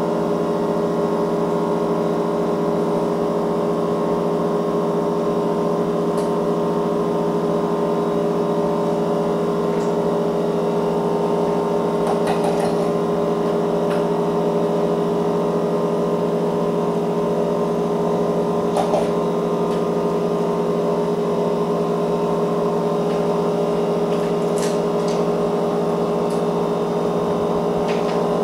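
A steady mechanical hum made of several fixed tones, with a few light clicks scattered through it.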